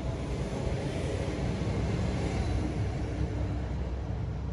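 Low outdoor rumble that swells from about a second in and eases toward the end.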